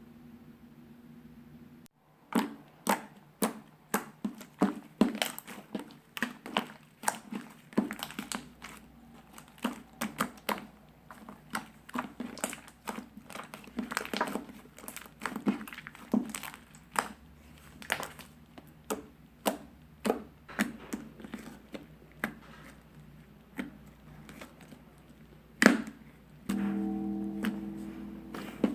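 Slime being pressed and poked by hand, giving a run of sharp, irregular popping clicks, about two a second. Near the end a steady sound of several held pitches takes over for about two seconds.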